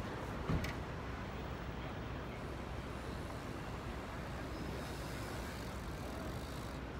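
City street traffic noise: a steady rumble of passing cars, with one brief thump about half a second in.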